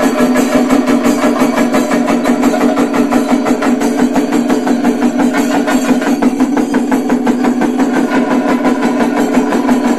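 Chenda melam: a group of chenda drums beaten with sticks in a fast, dense, unbroken rhythm, loud throughout.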